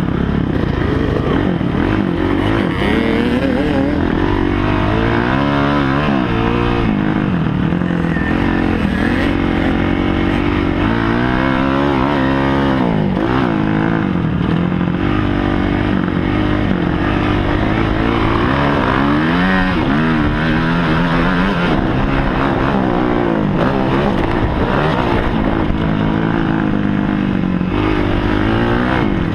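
Kawasaki KX250F four-stroke single-cylinder motocross engine being ridden hard, heard close up from on the bike. Its pitch climbs and drops over and over as the throttle is opened and shut.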